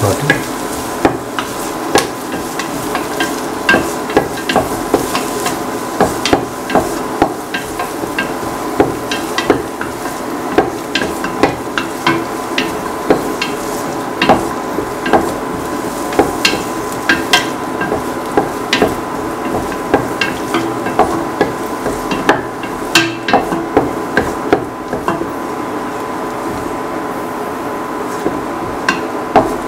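Chopped onions, shallots and garlic sizzling in oil in a stainless steel pan, with a utensil knocking and scraping against the pan in irregular clicks, several a second, as they are stirred.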